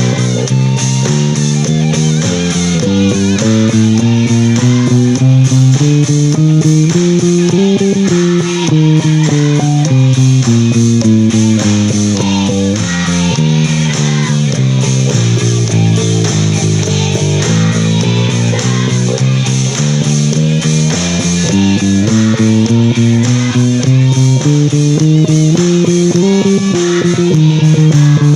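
Instrumental rock passage: bass guitar and electric guitar play a running melodic line of quick plucked notes that climbs and falls again in waves, with no vocals.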